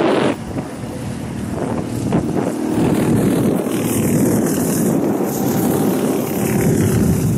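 Rental go-kart engines running as karts drive around the circuit: a steady engine drone that grows louder about two to three seconds in as karts come nearer.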